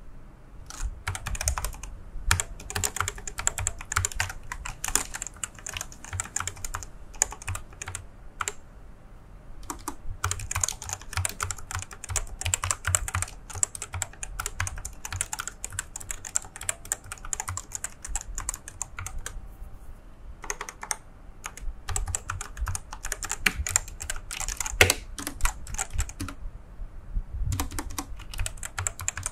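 Fast typing on an RK100 mechanical keyboard fitted with linear red switches: rapid runs of keystrokes with a couple of brief pauses. The sound is dull and solid, without a crisp clack.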